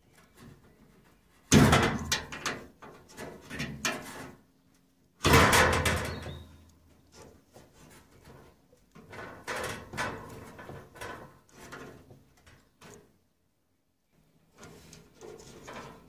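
Handling noise from pushing wire spade connectors onto the thermal fuse on a tumble dryer's sheet-metal housing: two loud clattering knocks about one and a half and five seconds in, each dying away over a second or so, then softer clicks and rustles.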